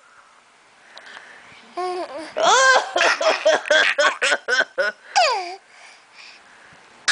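Small child giggling: after a quiet start, a couple of high-pitched laughs, then a quick run of short giggles at about four a second, ending in one longer call that falls in pitch.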